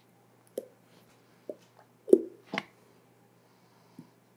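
Plastic squeeze bottle of ketchup squeezed upside down, sputtering and squelching as ketchup and air squirt out into a glass measuring cup: a few short squirts, the loudest pair about two seconds in.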